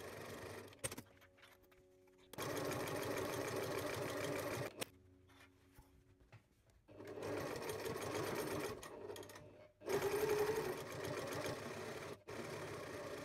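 A sewing machine stitches a seam through fabric, running in several spurts of a few seconds with short pauses between them.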